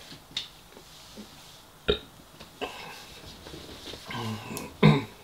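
A man burping while eating, the loudest burst near the end, with short mouth and chewing noises in between.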